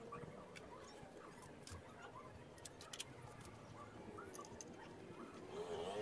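Faint, scattered metal clicks and clinks of nuts and hand tools being handled on an engine's exhaust manifold studs.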